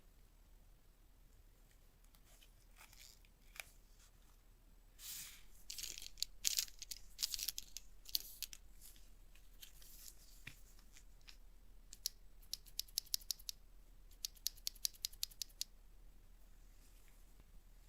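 Keyboard packaging being handled and opened: a few seconds of crackly rustling and tearing about five seconds in, then two quick runs of sharp, evenly spaced clicks near the end.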